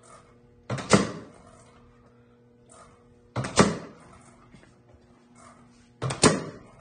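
Small pneumatic cylinder pushing a swinging pendulum generator rig, firing three times about every two and a half seconds: each time a short knock followed by a louder thunk and burst of air that fades over about half a second. A low steady hum runs underneath.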